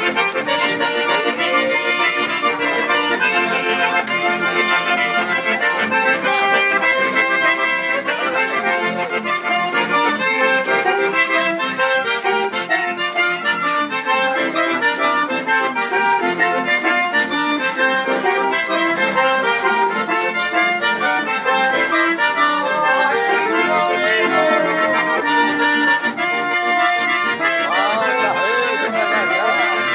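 Accordion playing a chamamé tune in a steady stream of quick notes, without pause.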